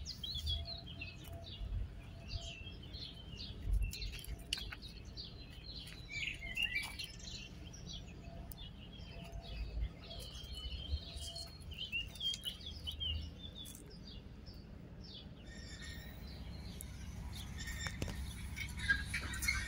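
Small songbirds chirping and singing, many short calls overlapping, with low bumps of handling noise underneath. Near the end the birdsong gives way to a steadier background noise.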